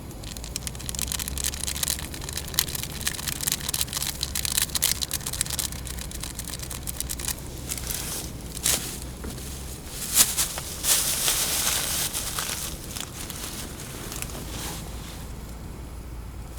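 Cooking on a gas camping stove: irregular crackling and rustling over a low steady rumble that cuts out about ten seconds in.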